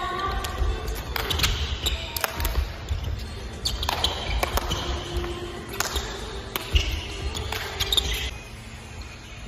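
Sneakers squeaking and feet and hands thudding on a hardwood gym floor during agility drills, over background music; the knocks stop about a second before the end.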